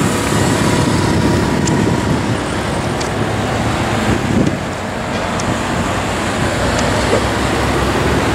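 A motorcycle and a line of cars, team cars carrying bicycles on roof racks, passing close by one after another, their engines and tyres running steadily.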